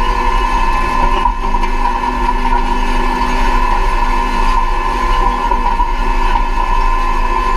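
John Deere 1990 CCS drill at work, pulled through a field while seeding: a steady mechanical running noise with a constant whine over it.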